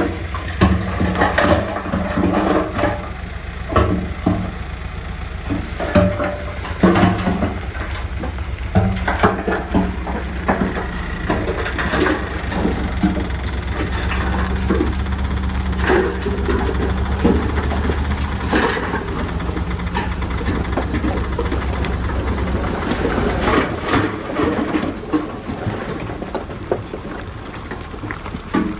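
Heavy earthmoving machinery: a large diesel engine runs steadily under a low drone, with frequent sharp knocks and clanks scattered through it. The engine's low drone drops back about three-quarters of the way in.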